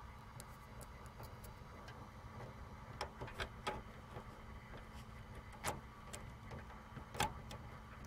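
Faint, scattered clicks and taps of a plastic RJ45 Ethernet plug being fumbled into a computer's network port, its latch tab bent up so that it will lock in. A low steady hum runs underneath.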